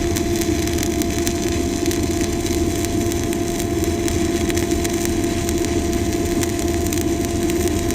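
Stick-welding arc crackling steadily over a steady hum as a 7018 electrode at 80 amps is run in a zigzag weave up a vertical joint.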